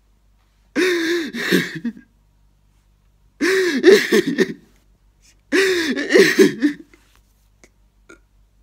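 A man sobbing and wailing: three long, wavering cries, each over a second, with short quiet gaps between.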